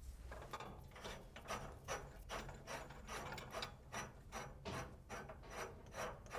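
Rapid clicking of a ratchet mechanism worked by hand at a breaker cubicle, about four to five clicks a second.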